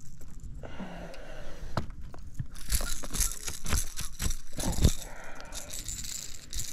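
Close-up handling noise in a small fishing boat: rustling and crinkling with a cluster of sharp knocks and taps between about three and five seconds in, the loudest near the end of that cluster.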